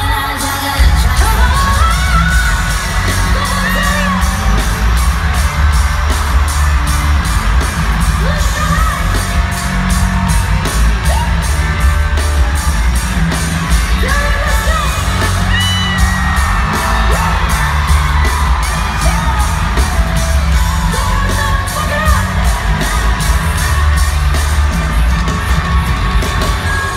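Live pop song played loud over an arena PA, recorded from the crowd: a heavy bass beat with a woman singing lead.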